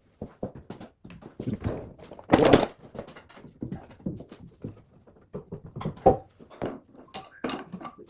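A series of irregular knocks and clunks, the loudest about two and a half seconds in.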